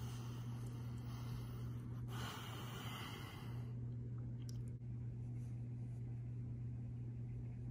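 A person breathing close to the microphone, with a longer, louder breath from about two to three and a half seconds in, over a steady low electrical hum.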